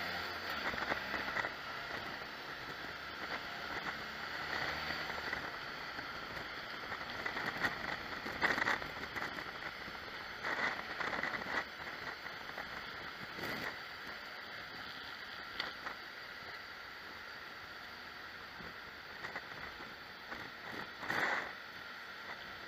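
Steady rushing wind and road noise of a motorcycle riding along, with a few short knocks.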